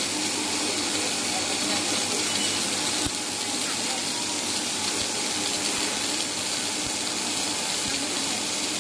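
Robotic arc-welding torch running a continuous weld: a steady hiss from the arc, dipping slightly in level about three seconds in.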